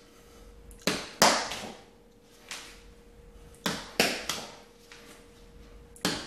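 Nunchaku with yellow foam-covered handles being swung and caught: a series of sharp smacks as the handles are caught and blocked in the hands, some in quick pairs and threes.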